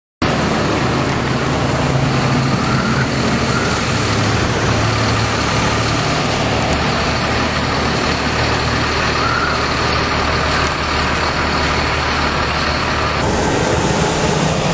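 Steady wind noise of a blizzard with the low hum of a vehicle engine underneath.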